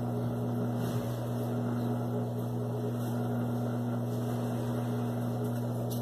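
Consul CWG12 top-loading washing machine giving a steady low electric hum while its drum and agitator stand still, paused at the start of the rinse stage.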